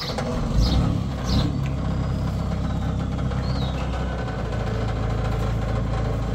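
An engine running steadily at low speed. It comes in abruptly, with two brief surges in the first second and a half.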